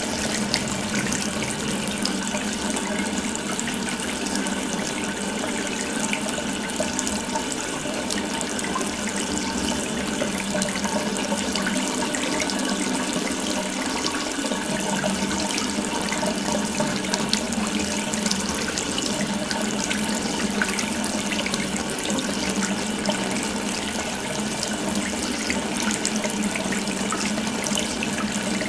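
Water tap running steadily, an open faucet stream splashing into a sink with an even, unbroken rush.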